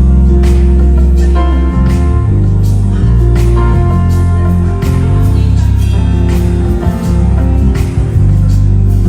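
Live gospel band playing, with an electric bass (a Fender Jazz bass) loud in the mix, playing deep notes that change every second or so under held chords and steady drum hits.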